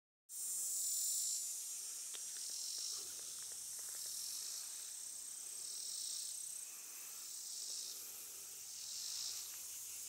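Insect chorus of crickets or katydids: a shrill, high-pitched buzz that swells and fades in slow waves, with a thin steady high whine under it for the first several seconds.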